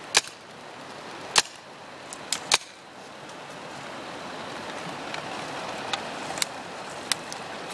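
Paintball marker firing single sharp pops: two loud ones a little over a second apart, a quick pair about a second later, then a few fainter pops near the end, over a steady rushing hiss.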